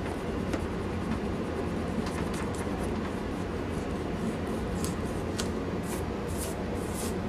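A rubber eraser being rubbed back and forth on drawing paper in short strokes, faint at first and then more distinct, about two a second near the end, over a steady low hum.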